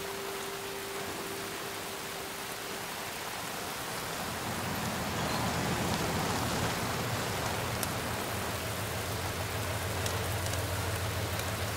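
Steady rain falling on pavement. From about four seconds in, an old car's engine rumble joins it, growing louder as the car rolls up, then holding steady as it idles.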